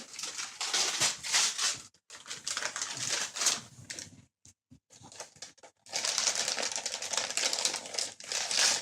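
Wrapping paper being torn and crinkled as a present is unwrapped, in rapid crackly stretches that ease off near the middle and come back dense near the end.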